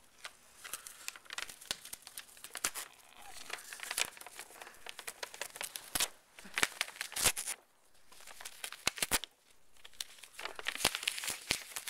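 Plain paper crinkling and tearing as a pet rabbit bites and pulls at a sheet held to its mouth: irregular sharp crackles and short ripping bursts.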